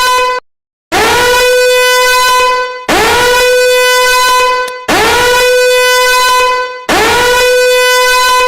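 Countdown timer alarm: a loud horn blare that swoops up at its start, holds one steady pitch for about two seconds and then dies away, repeating every two seconds. After a brief silent break near the start, four full blares follow.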